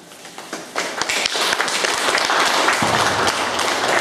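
Audience applauding: a few scattered claps at first, filling out within the first second into steady applause.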